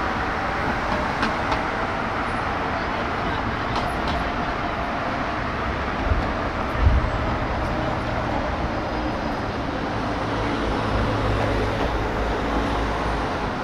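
Steady hum of city street traffic, cars and engines passing on a multi-lane avenue, with a brief low thump about seven seconds in.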